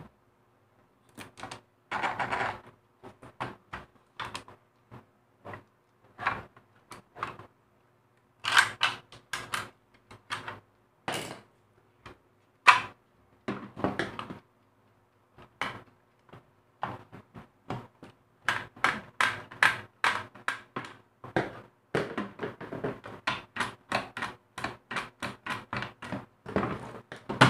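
Plastic housing of a mini sewing machine being pried apart by hand: irregular clicks, snaps and knocks of plastic, sparse at first and coming thick and fast over the last third.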